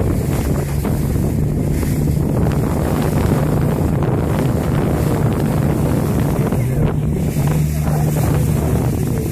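Boat running at speed: a steady low engine drone under the rush of water and spray along the hull, with wind buffeting the microphone.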